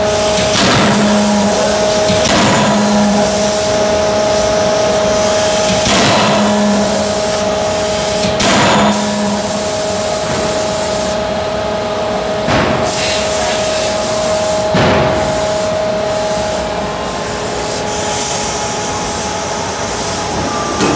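Anyang 31.5 kJ CNC hydraulic closed-die forging hammer striking hot metal in the die: about six heavy blows a few seconds apart over the first fifteen seconds or so, over a steady machine hum.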